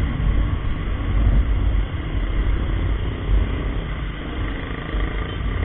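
Small motorcycle riding along at a steady speed: wind buffeting the camera microphone over the engine noise, a constant heavy rumble with a rushing hiss above it, among other small motorcycles.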